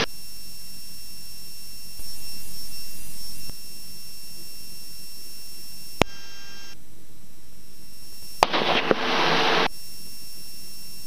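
Steady hiss with a faint high whine on the cockpit intercom and radio audio of a taxiing King Air, with no one speaking. A sharp click comes about six seconds in, and a burst of static lasting about a second comes near the end, like a radio keyed without speech.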